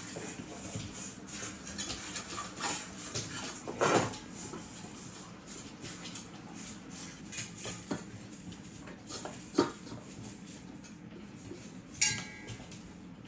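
A German shepherd eating kibble from a stainless steel bowl, its muzzle knocking the bowl: frequent small clicks and clinks, with louder clanks about four seconds in and near ten seconds. A final clank about twelve seconds in leaves the metal bowl ringing briefly.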